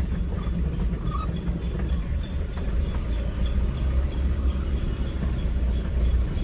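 Steady low rumble of a running vehicle, with faint high ticks repeating about three times a second.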